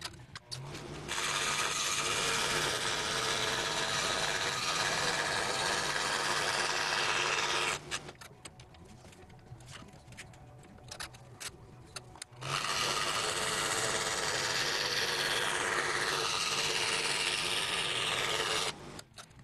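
Scroll saw with a #7 Pegas spiral blade cutting through birch plywood, a steady rasping saw noise over the motor's low hum. It runs twice, for about six seconds each time, and stops for about four seconds in between, when only light clicks and handling knocks are heard.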